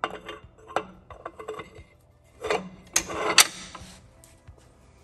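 A Top Fuel dragster clutch plate being slid along a dummy clutch shaft and seated onto the clutch pack: metal plates knocking and scraping. There are a few light knocks, then two louder scrapes about two and a half and three seconds in, the second ending in the loudest sharp knock.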